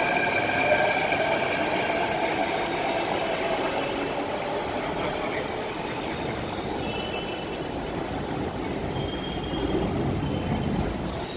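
Mumbai Metro Line 1 train pulling out of the station, its traction motors whining in several steady tones over the rumble of its wheels, fading as it moves away. A few brief high squeals come partway through, and a low rumble rises near the end.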